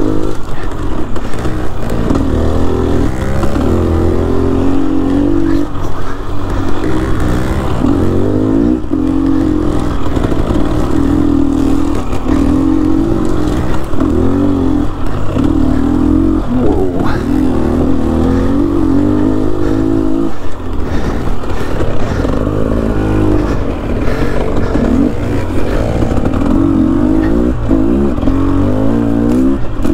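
Dirt bike engine revving up and down over and over while riding a trail, its pitch rising and falling with the throttle, with a few short knocks.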